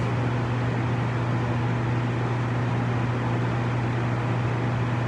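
Steady low hum over an even hiss with no other events: the constant background noise of the room and recording setup.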